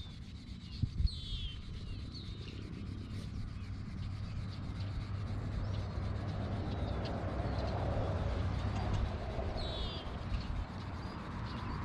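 Hand sanding of a shepherd's horn stick with sandpaper: continuous rubbing and scratching that grows louder through the middle, with a couple of light knocks about a second in.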